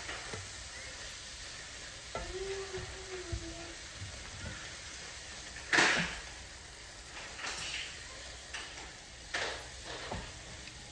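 Chicken pieces sizzling in sauce in a stainless steel pan while a white cooking spoon stirs them. The spoon scrapes against the pan several times, loudest once about halfway through.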